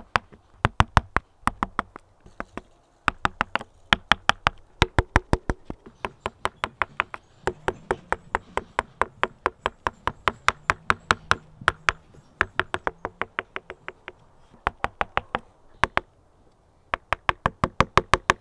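A mallet tapping a hand carving gouge into wood: quick runs of sharp knocks, about four or five a second, broken by brief pauses.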